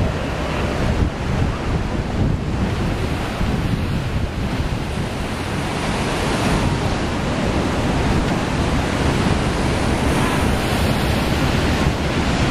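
Ocean surf breaking and washing over the rocks, a steady rushing noise, with wind buffeting the microphone.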